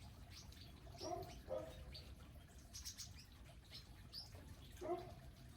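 Wild birds chirping: many short, high chirps throughout, with three short lower calls, about a second in, half a second later, and near the end.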